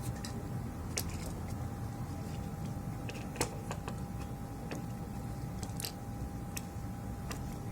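A few light clicks and taps of small tools and parts handled on a workbench, over a steady low hum with a faint steady tone.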